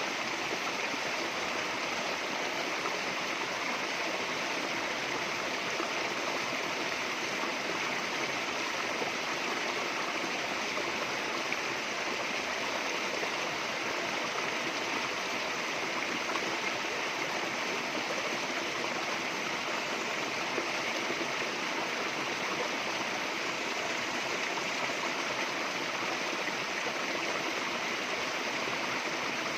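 Running water rushing steadily and evenly, with no letup or change.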